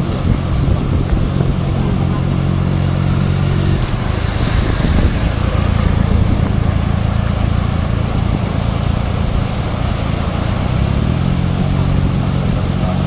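A vehicle engine running steadily with a low, even hum. For several seconds in the middle a louder rushing noise covers it, and the hum returns near the end.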